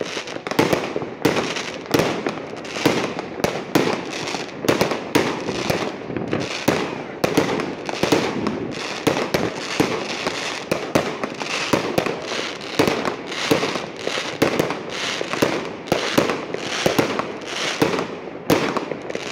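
Aerial fireworks going off in a continuous barrage: irregular sharp bangs, several a second, over a steady crackle.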